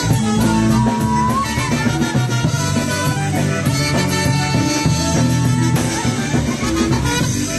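Live polka band playing a concertina polka: concertina over drums and bass, with a steady beat.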